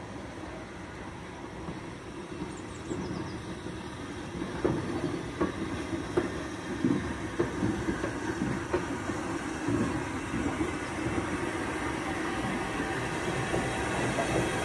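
Hunslet Austerity 0-6-0 saddle-tank steam locomotive running slowly past. It gets louder from about four seconds in, with a string of sharp knocks and clanks over a steady rumble.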